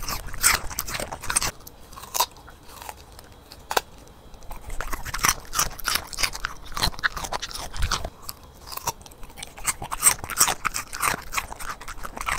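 A corgi chewing a piece of raw white radish: irregular crisp crunches, with a short lull about three to four seconds in.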